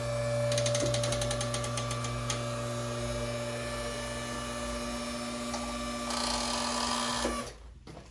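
Electric motor of a chiropractic high-low table running with a steady hum as the table tilts back up to upright, cutting off near the end.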